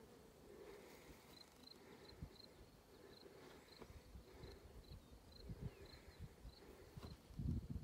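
Faint insect chirping: a short high chirp repeated evenly, about two to three times a second. Wind buffets the microphone in low rumbling gusts, strongest near the end.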